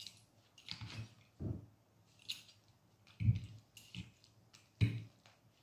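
A metal fork clicking and scraping against a ceramic plate and clam and mussel shells, with chewing between. The sounds come as about half a dozen separate short bursts.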